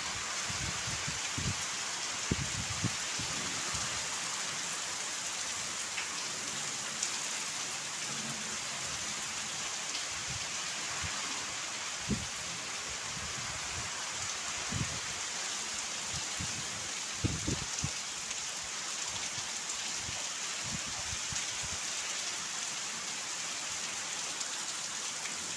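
Steady wind-driven rain falling, with a few brief low thumps scattered through it.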